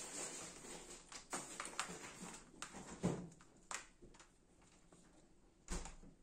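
Handling noise of cables and connectors on a glass tabletop: rustling wires, then scattered clicks and knocks as plugs are handled and set down, the loudest about three seconds in, with a low thump near the end.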